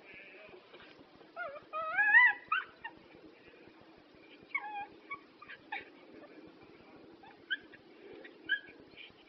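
Dog whining and yelping: a loud, rising, wavering whine about two seconds in, then short high yips now and then through the rest.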